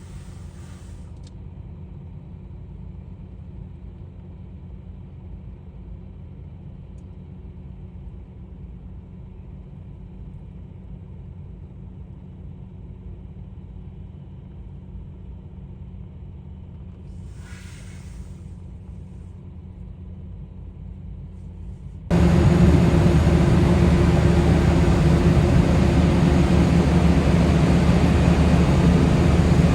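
A steady low rumble with two brief hisses, then about two-thirds of the way in a sudden jump to the loud, steady roar of airliner jet engines.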